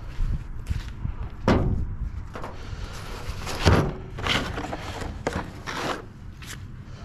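Metal knocks and clanks with some scraping as parts of a welder/generator are handled while it is being dismantled, the two loudest knocks about a second and a half and three and a half seconds in.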